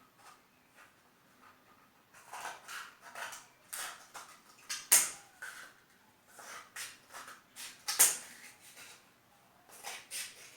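Scissors cutting a cardboard toilet-paper roll: a run of short crisp snips starting about two seconds in, with sharper snaps about five and eight seconds in.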